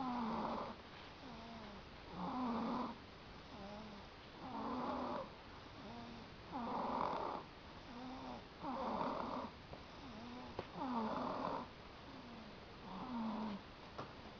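Snoring from a sleeper: a slow, even rhythm of snores about every two seconds, seven in all, with softer breaths between them.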